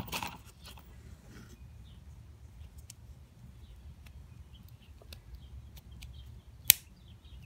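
Small plastic clicks of a hobby-grade RC truck shock absorber being handled, over a low steady hum, then one sharp snap near the end as the compressed coil spring's lower retainer clips into place on the rod end.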